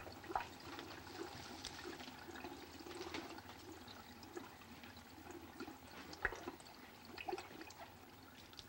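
Faint gurgling, trickling water with scattered irregular drips and small splashes. The loudest splashes come just after the start and about six seconds in.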